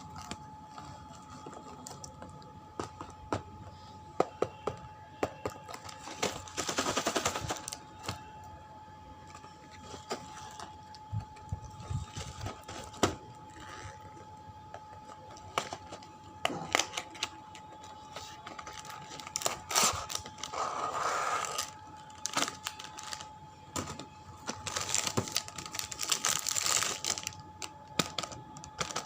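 Wafer-roll packaging being handled and opened: plastic wrapper crinkling and rustling in several longer bursts, with many sharp clicks and taps in between.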